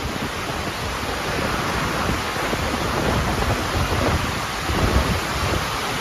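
Hurricane wind and heavy rain, a steady rushing hiss with gusts rumbling on the microphone.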